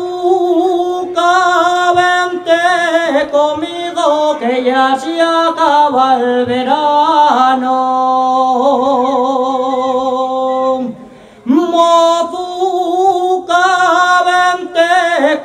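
A man singing a Cantabrian tonada montañesa solo and unaccompanied, in long drawn-out notes with ornamented turns and vibrato. He breaks for a breath about eleven seconds in, then starts a new phrase.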